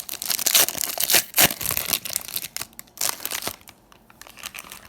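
Foil trading-card pack being torn open and crinkled by hand, a dense crackle for about three and a half seconds that then drops to a few soft crinkles.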